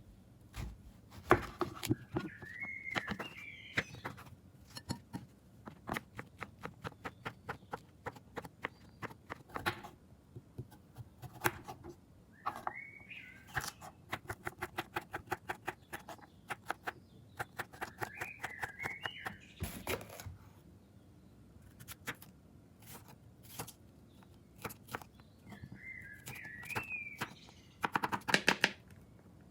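Knife chopping vegetables on a cutting board in quick runs of sharp knocks, several a second. Short high warbling chirps come in four times.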